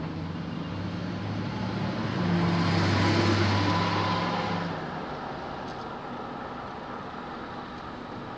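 Motor vehicle engine hum that grows louder about two seconds in and fades away by about five seconds in, leaving a quieter steady background noise.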